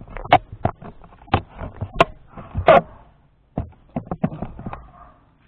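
Handling noise from a camera being moved about and set down low near the floor: a string of irregular knocks and clicks, with a louder rustle about two and a half seconds in, and footsteps in slippers on a wooden floor.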